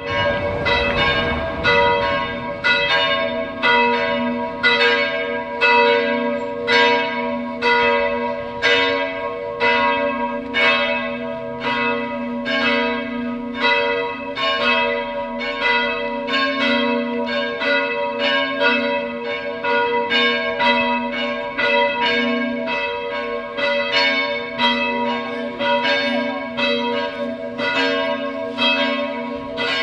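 Church bells ringing a continuous peal: strikes come in steady succession, about one and a half a second, and each bell's tone rings on under the next so that they overlap.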